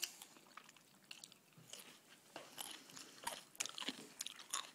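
A young child chewing raw cucumber: a faint, irregular run of small wet crunches.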